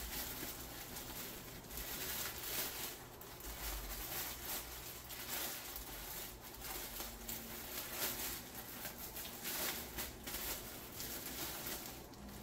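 Plastic packaging being crinkled and crumpled by hand, a continuous dense crackling.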